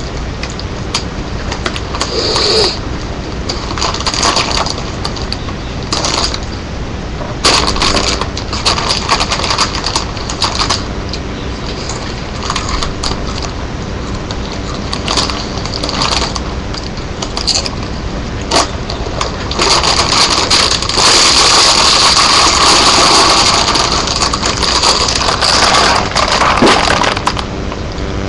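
Siamese cat biting and crunching Doritos, crisp crackling in irregular bursts, with a longer, louder stretch of crackling about twenty seconds in.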